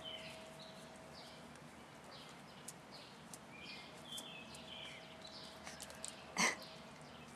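Faint outdoor quiet with small birds chirping in the background, and one short, louder sniff from the Siberian husky nosing the sprinkler about six seconds in.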